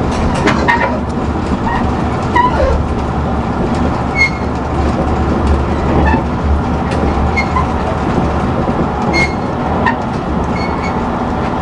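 Passenger train running: a steady low rumble with faint rattles and clicks.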